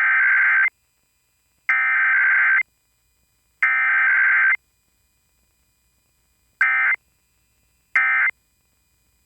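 Emergency Alert System SAME digital data bursts broadcast on FM radio for a required weekly test. Three header bursts of about a second each, roughly two seconds apart, are followed by the short end-of-message bursts, two of them near the end with a third just starting.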